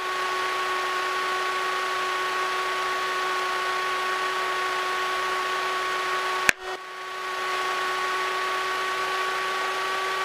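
Aircraft intercom audio feed: a steady hiss with a constant electronic whine made of several steady tones. A sharp click about six and a half seconds in; after it the hiss drops briefly and comes back over about a second.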